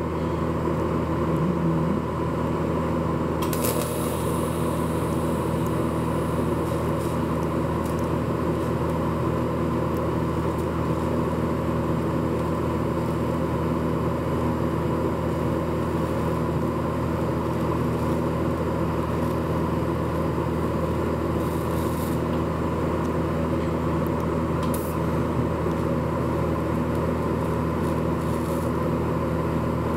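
TIG welder running a bead that joins a steel shaft to a grade 8 nut: a steady electrical hum, with a few faint crackles.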